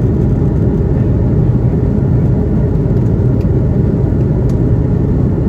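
Airbus A330-200 airliner heard from inside the passenger cabin: a steady, loud, low rumble of engines and airflow.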